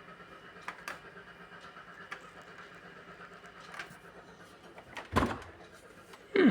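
Beko washing machine running in its service-mode test with a faint steady hum and a few light clicks, and a heavier thump about five seconds in.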